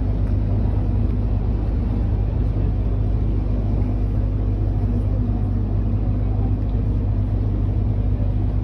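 Tour boat's engine running steadily, a low even hum heard from on board.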